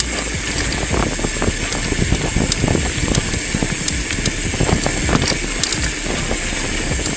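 Mountain bike rolling over a loose gravel road: tyres crunching on the stones and the bike rattling and knocking continuously over the bumps, picked up through a handlebar-mounted camera.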